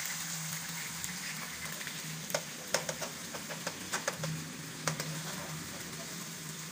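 Diced chicken sizzling in hot oil in a non-stick wok, starting to turn golden. It is stirred with a steel spoon, and a run of sharp clicks against the pan comes in the middle.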